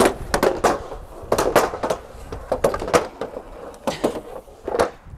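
Inline skates clattering and rolling on rough pavement: a run of sharp, irregular knocks and rattles from the wheels and frames.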